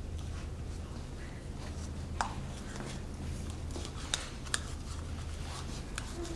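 Light clicks and taps of paintbrushes and small cups being handled at a painting table, over a steady low hum. A few sharp clicks stand out, the clearest about two seconds in and twice near four and a half seconds.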